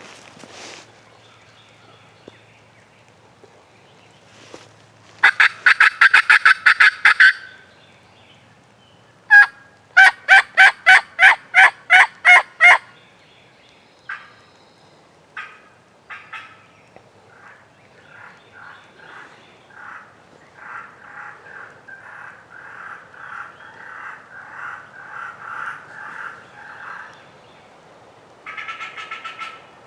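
Hunter's turkey call worked aggressively, imitating a hen: a fast string of loud, sharp notes about five seconds in, then a run of about nine loud yelps a few seconds later. After that comes a longer, softer run of repeated yelps, and another loud burst near the end.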